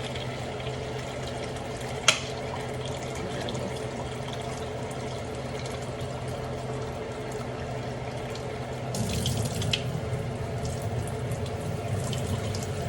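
Kitchen tap running water into a measuring cup, a steady stream with a single click about two seconds in. The flow grows louder about nine seconds in.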